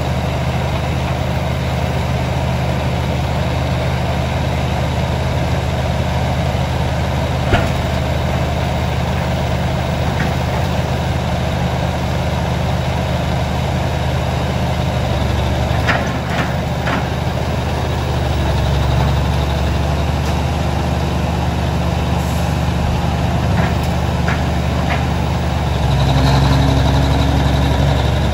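Old tracked excavator's diesel engine running steadily, its note rising and growing louder about two-thirds through and again near the end as the hydraulics take load. A few short metallic knocks.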